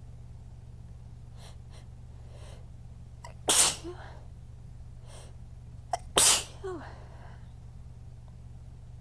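A person sneezing twice hard in a sneezing fit, about three seconds apart. Each sneeze comes after short gasping in-breaths and a quick catch of breath. A steady low hum runs underneath.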